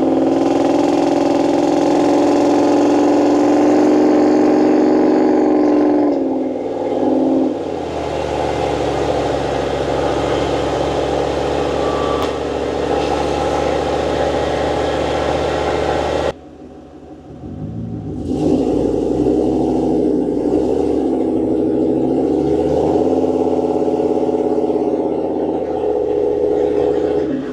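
A Humvee's 6.2 L LS3 V8 and drivetrain, heard from inside the cab while driving, with a steady hum of engine and road noise. The pitch drops after about six seconds. The sound falls away sharply for about two seconds after sixteen seconds, then returns and rises again as the truck accelerates.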